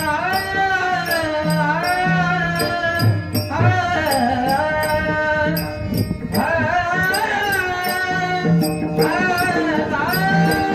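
Marathi devotional bhajan: a man sings long, sliding melodic phrases while small brass hand cymbals (tal) keep a steady beat of a few strikes a second, with a low drum underneath.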